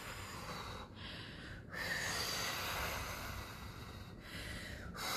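A woman breathing audibly close to the microphone: a few breaths in and out, one of them drawn out for about two seconds.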